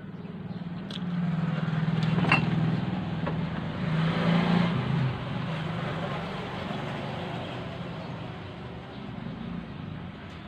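A motor vehicle's engine running as it passes, swelling from about a second in, loudest about midway, then fading to a steady low hum, with a couple of faint clicks.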